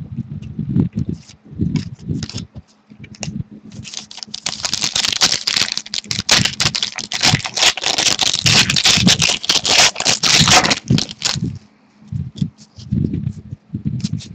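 Trading card pack being handled and its foil wrapper torn open and crinkled, a dense crackling run of about seven seconds. Cards are shuffled and slid around it, with scattered clicks and scrapes.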